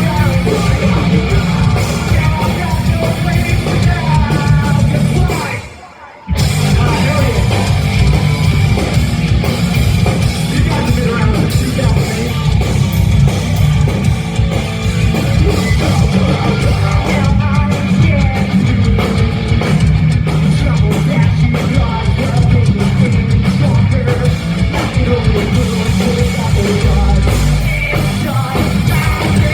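Live rock band playing loud, with distorted electric guitars, a drum kit and vocals. The whole band stops dead for a moment about six seconds in, then crashes back in.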